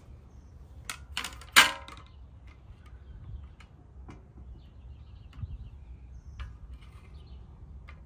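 Plastic mounting plate set down on a painted luggage rack: a couple of light clicks, then one sharp clack that rings briefly about one and a half seconds in, followed by faint scattered ticks as the plate is shifted into place.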